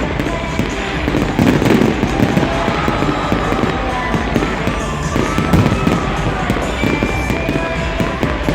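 Fireworks display going off: a dense, steady run of pops, bangs and crackles.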